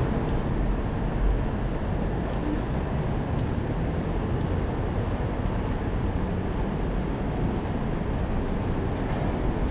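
Steady rumble of city street traffic from the road alongside, an even noise heaviest in the low end, with no distinct events standing out.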